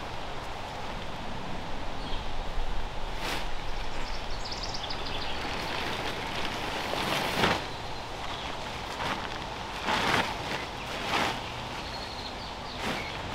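Large cabin-tent fabric rustling and swishing as it is lifted and folded over, with about five louder swishes over a steady outdoor background hiss.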